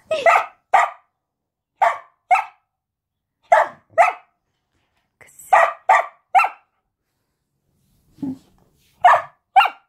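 Samoyed dog barking: about a dozen short barks, mostly in quick pairs, with a pause of about two seconds before a last pair near the end.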